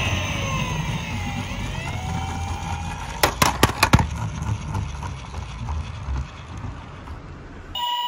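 A toy police car's electronic siren sounds while its wheels roll down a wooden board with a low rumble. The siren tone glides down and then back up in the first two seconds. About three seconds in comes a quick run of sharp clacks, the loudest sounds here, and then the rumble dies away.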